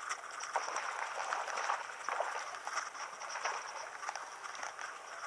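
Baitcasting reel cranked in a fast, steady retrieve, its handle and gears giving a run of small irregular clicks and a soft whirring.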